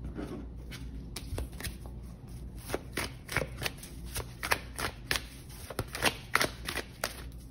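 A tarot deck being shuffled by hand: a run of irregular card slaps and snaps that gets louder after the first couple of seconds.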